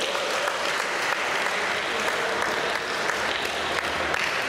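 Applause: many people clapping steadily, with a few voices calling out over it.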